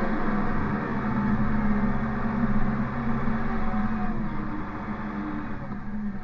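A vehicle engine running steadily, its note shifting a little, and growing slightly quieter in the second half.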